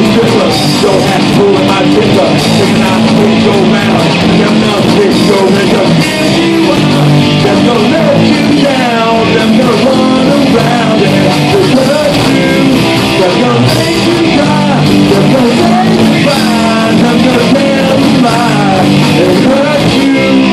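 Live rock band playing loud: electric guitars, bass guitar and drums, with bending lead lines.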